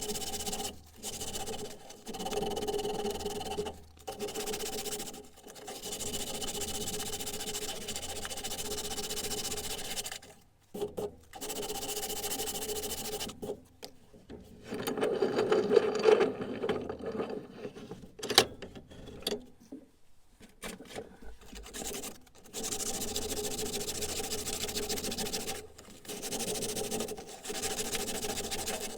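A small electric power tool's motor running with a steady whine, broken by several short breaks. About halfway through it turns louder and rougher, and a sharp click follows a couple of seconds later.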